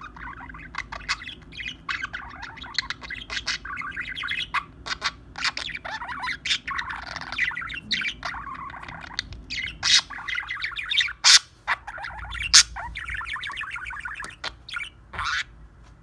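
Budgerigar warbling: a continuous fast chatter of chirps and clicks, with a few sharp, loud squawks in the second half.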